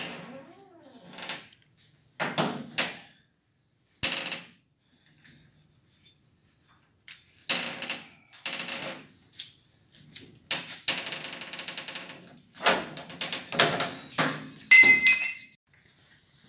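Ratchet strap being cranked tight to pull a bent snow-bus door straight: bursts of rapid ratchet clicking, the longest run a little past the middle, among metal clanks. A short ringing metal clatter near the end.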